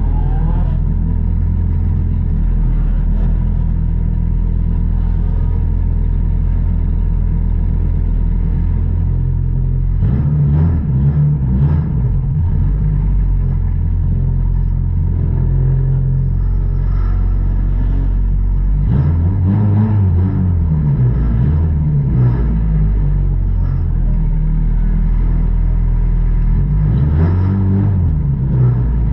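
Race car engine idling, heard from inside the cockpit, with brief throttle blips that raise and drop the engine note about ten seconds in, around twenty seconds, and again near the end.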